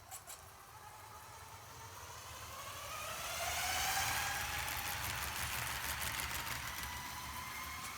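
LEGO model train's electric Power Functions L-motors and gearing whining, rising in pitch and getting louder to a peak about four seconds in, with light clicking of the wheels over the plastic track joints.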